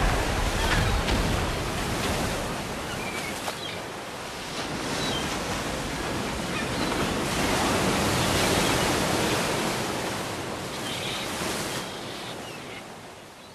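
End of a sound-effects collage: a dense, steady wash of noise with a few faint, short high tones, slowly fading out over the last few seconds.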